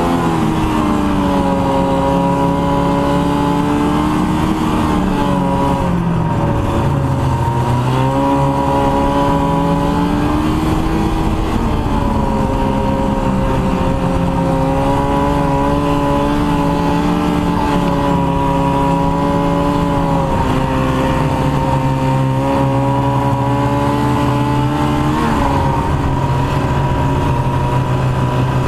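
1989 Ski-Doo Formula Plus snowmobile's two-stroke engine running under way. Its pitch sags as the throttle eases off about five seconds in, climbs again around eight seconds, then mostly holds steady with small dips and rises.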